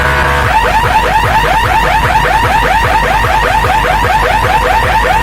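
Electronic alarm-siren tone played loud over a sound system during a sound check: a rapid run of rising chirps, about six a second, over a steady deep bass hum, with a brief break in the chirping right at the start.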